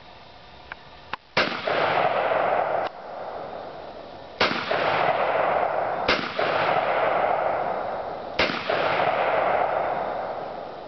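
Four gunshots spaced a few seconds apart, each followed by a long rolling echo that dies away over a second or two.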